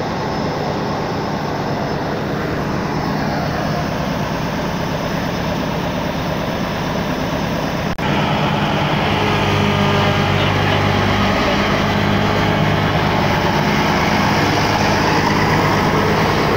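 Combine harvester engine running steadily at close range, a continuous low hum. About eight seconds in it jumps louder and stays that way.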